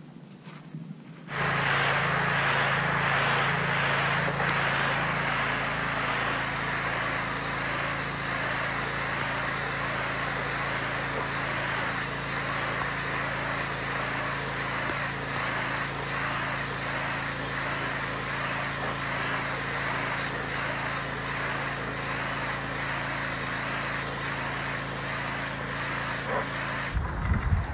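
Pressure washer running: a steady motor hum under the constant hiss of the spray on stamped concrete, starting about a second in.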